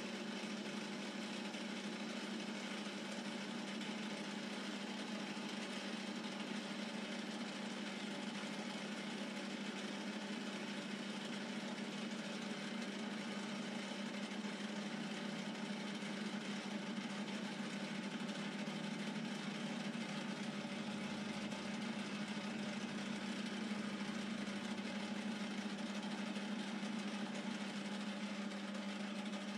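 Metal lathe running steadily with a strong low hum from its motor and gearing, while a brazed carbide tool takes a facing cut across the spinning workpiece.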